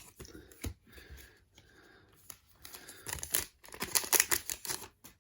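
Foil trading-card booster pack crinkling and rustling as it is handled and the cards are slid out, with a dense flurry of crinkles and clicks in the second half.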